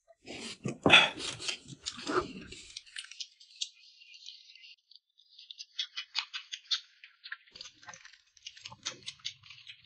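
Drinking from a glass bowl, loudest about a second in, then close-up eating sounds: wet chewing and quick crackly mouth clicks as dumplings are eaten.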